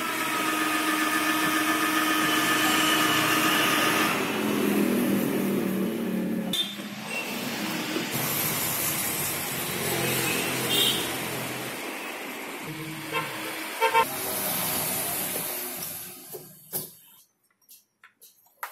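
Cordless drill boring a hole in a car's rear bumper for a parking sensor. The motor runs with a steady whine for about four seconds, then drops lower and rougher as the bit cuts. Rougher, uneven drilling follows, with a couple of sharp knocks, before it falls quiet near the end.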